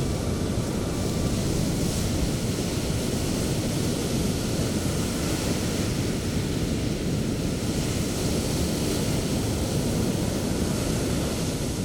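Sea waves breaking and washing up the beach: a steady rushing noise, heavy in the low end, with no distinct single crashes.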